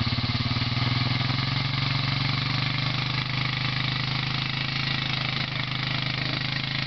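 ATV engine running steadily at low revs, an even, unbroken engine note.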